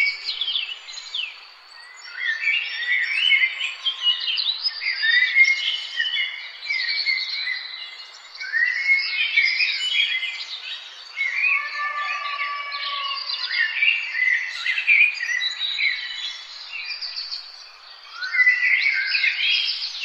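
Several songbirds singing and chirping at once: overlapping high, quick song phrases in dense bursts, with a few short lulls between them.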